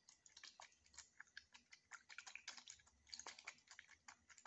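Faint, irregular light clicks and ticks of a thin plastic cup being gripped and swirled by hand to mix the liquid inside.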